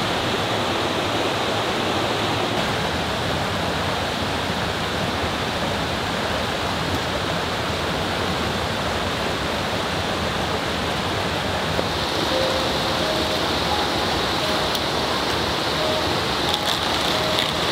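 Steady rush of a rocky mountain stream and small waterfall. About three-quarters of the way through, soft music notes begin over it, a few short notes at changing pitches.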